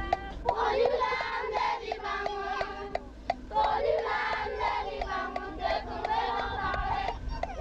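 A group of voices singing together over a quick, even beat of sharp clicks.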